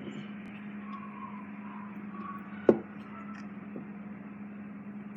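Steady low hum of room noise, with one sharp knock about two and a half seconds in.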